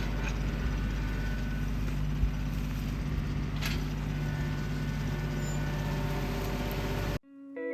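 An engine running steadily at constant speed. It cuts off abruptly near the end, and guitar music starts.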